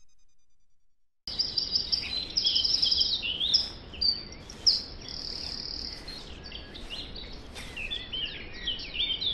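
Outdoor birdsong ambience: many birds chirping and singing at once over a low steady background hiss. It starts suddenly about a second in, after near silence.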